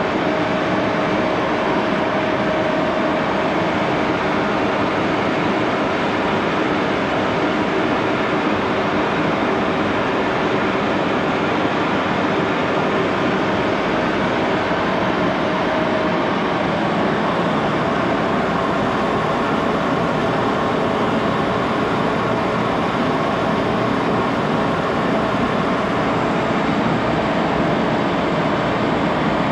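1941 Axelson 14x30 gearhead engine lathe running steadily with a steel shaft turning between chuck and tailstock: an even, continuous mechanical run with a faint steady whine in it.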